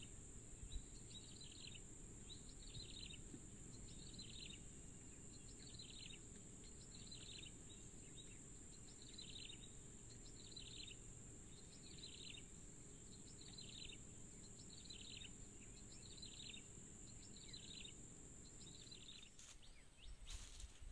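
Faint riverside ambience: a steady high-pitched insect drone with a short chirp repeating about once a second over a low background rumble. The drone cuts out near the end, followed by a couple of clicks.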